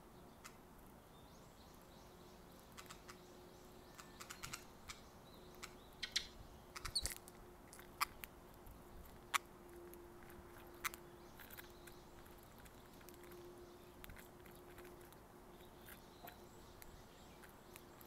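Eurasian tree sparrow at close range: scattered faint clicks and taps, bunched in the middle, with one short high chirp about seven seconds in, over a faint steady hum.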